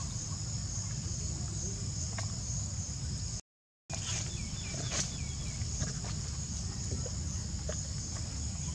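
Steady high-pitched drone of insects, with low rumbling noise underneath and a few faint chirps. The sound cuts out for about half a second around three and a half seconds in.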